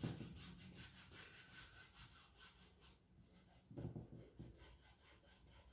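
Pencil scratching across drawing paper in quick, faint, repeated strokes as a portrait sketch is worked up. A brief low sound breaks in about four seconds in.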